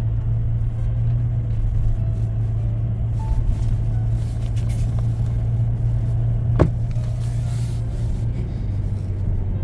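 Steady low drone of a moving car heard from inside the cabin, engine and road noise, with a single sharp click about two-thirds of the way through.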